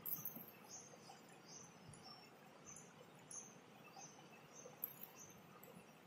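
Faint, quick squeaks of a felt-tip marker on a whiteboard as short graduation ticks are drawn, about two a second, over a low room hiss.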